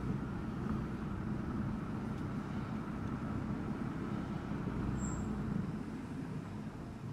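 Car driving along a road: a steady low engine hum and tyre rumble.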